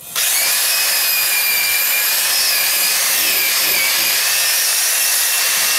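Electric drill spinning an 80-grit Flex-Hone ball hone inside a cast iron exhaust manifold runner: a loud, steady motor whine with the hiss of the abrasive against the iron. It starts suddenly right at the beginning and holds an even speed, its whine wavering slightly.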